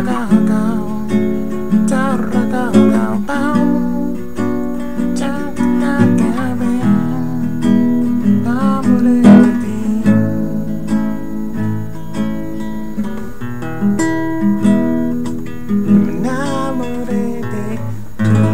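Nylon-string classical guitar strummed in a steady rhythm, with a man humming the melody along with it.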